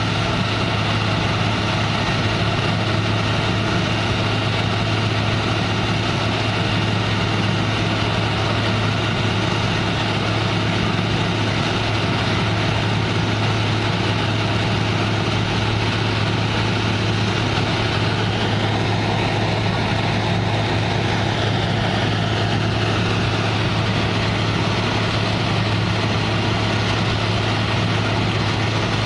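Concrete mixer truck's engine running steadily with a deep, even drone.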